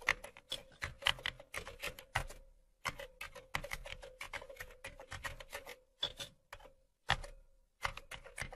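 Typing sound effect: rapid key clicks in quick runs, with short pauses past the middle, over a faint steady tone.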